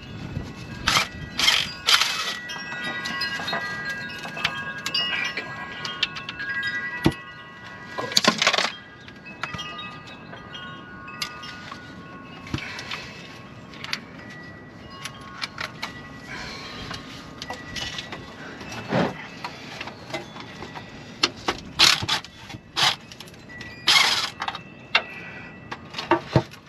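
Wind chimes ringing with several overlapping steady tones, mostly through the first half. Over them, a cordless impact driver runs in short bursts on the transmission pan bolts near the start, followed by scattered sharp metallic knocks and clanks of tool work.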